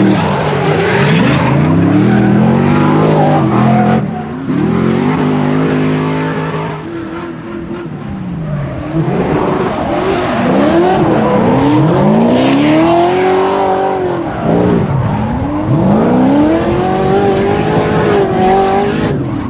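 Drift car engines revving hard, their pitch sweeping up and down again and again as the throttle is worked through the slides. Tyres screech underneath.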